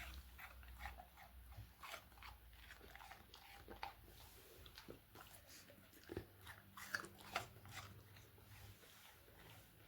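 Golden retriever chewing pieces of crisp apple, with faint irregular crunches and bites throughout and a few sharper crunches about six and seven seconds in.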